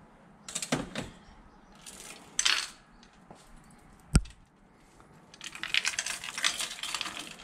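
Steel lifting chain clinking and rattling against the engine as it is handled. Short bursts of clinks near the start and about two and a half seconds in, a single sharp click about four seconds in, and a longer stretch of jangling near the end.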